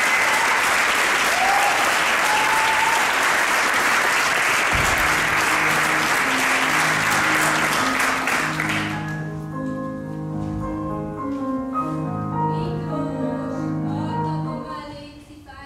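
Audience applause that dies away about two-thirds of the way through. A grand piano starts playing slow, sustained chords under the clapping about a third of the way in and carries on alone after it.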